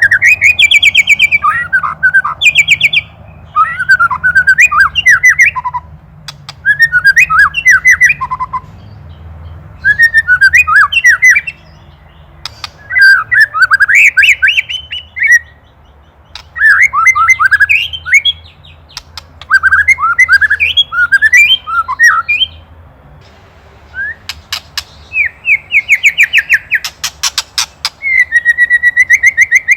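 White-rumped shama giving its agitated 'ketrekan' alarm chatter at a predator: repeated bursts of quick chattering notes about every two to three seconds, then a run of fast, rasping ticks near the end.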